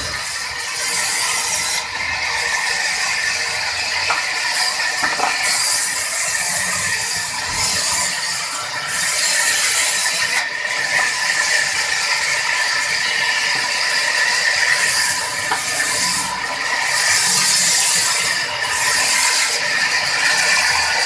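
Sawmill saw running and cutting through wood: a loud, continuous mechanical whine with a high, hissing cutting noise that swells and drops back several times.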